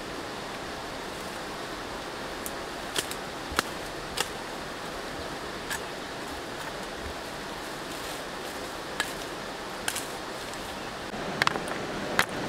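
Steady rush of river water, broken by about eight sharp, irregular cracks and snaps as bamboo stems and branches are broken off and gathered, with a couple of louder snaps near the end.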